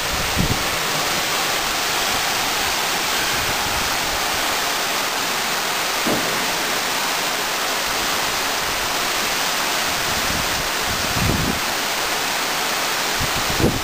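Heavy downpour of rain falling in a steady, even hiss.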